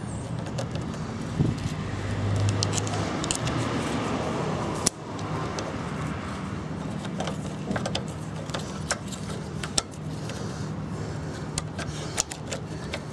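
Small metallic clicks and scrapes of a flathead screwdriver working a carburetor mounting screw into a small engine's intake, over a steady low hum.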